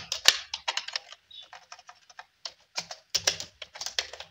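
Computer keyboard typing: quick, irregular keystrokes with a brief lull in the middle.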